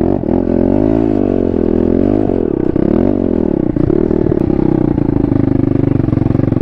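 Small pit bike's single-cylinder engine running under the rider, its revs rising and falling a few times with the throttle before settling to a steadier run.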